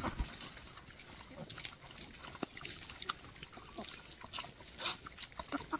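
Wild boar eating from a metal feed basin: irregular chewing and slurping, heard as many short clicks.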